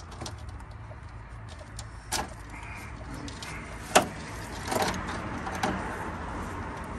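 Radiator and cooling-fan assembly being worked loose and lifted out of the car, with plastic and metal parts clicking and knocking. The sharpest knock comes about four seconds in, followed by a short rattle as the unit comes free.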